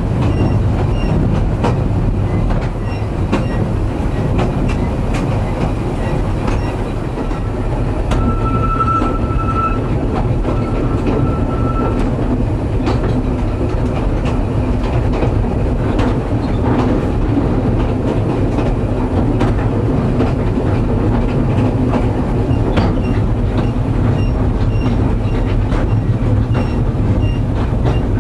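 Ride noise inside a narrow-gauge railway carriage on the move: a steady rumble and rattle of the wooden body, with clicks of the wheels over rail joints. A brief thin, high squeal comes about eight seconds in and fades out a few seconds later.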